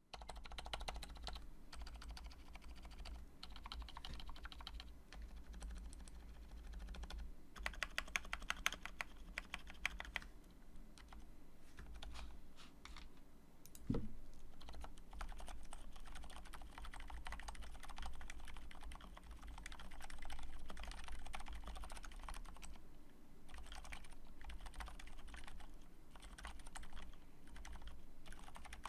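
Typing on a MonstarGear MK16BT mechanical keyboard with lubed silent Cherry MX Red switches on a steel plate: a steady stream of soft keystrokes. There is a quicker, sharper run of presses around eight to ten seconds in, and a single heavier thump about halfway, over a low steady hum.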